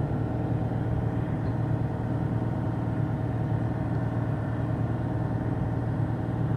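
An engine or motor running at a steady idle: a low, even hum with no revving.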